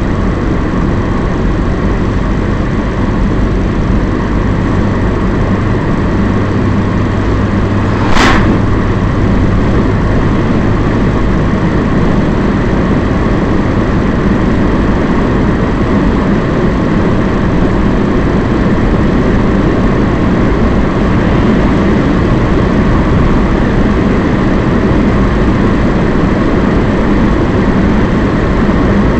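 Steady engine and tyre noise of a car driving at road speed, heard from inside the cabin, with one sharp click about eight seconds in.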